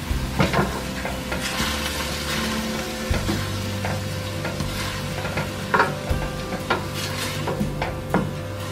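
Wooden spoon stirring diced bell peppers and onions that are sizzling in oil in a stainless steel sauté pan, with repeated sharp knocks and scrapes of the spoon against the pan.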